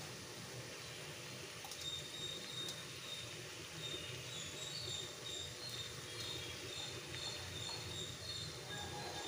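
Faint steady background noise with short high chirps repeating from about three seconds in.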